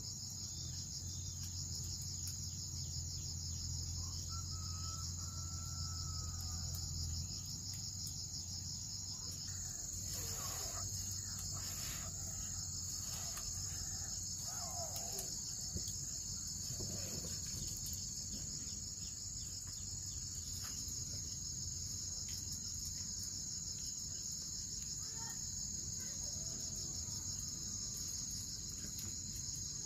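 Steady, high, pulsing insect chorus.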